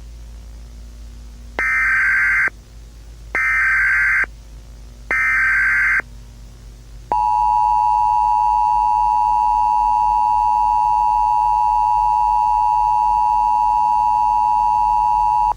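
Emergency Alert System alert tones: three short warbling data bursts of the SAME header, each about a second long, then a steady two-tone attention signal held for about eight seconds, over a low hum and hiss. These tones mark the start of an emergency alert broadcast.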